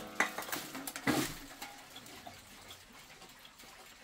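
Granddaughter clock with a 1973 SBS Feinmechanik black-forest movement striking the hour: two strokes about a second apart, each ringing on. After them the movement ticks faintly and evenly.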